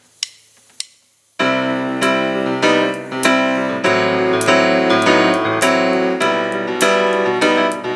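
Two sharp clicks in the first second, then about a second and a half in a stage keyboard starts a slow intro of sustained electric-piano chords, amplified through the PA.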